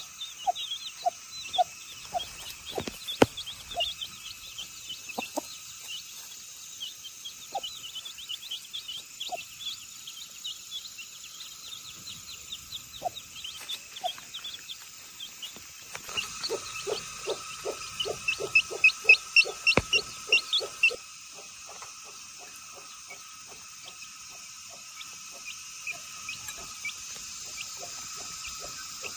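Chickens calling: a hen clucking with short repeated notes while chicks peep in high chirps. The calls come thick and fast for a few seconds past the middle, then thin out.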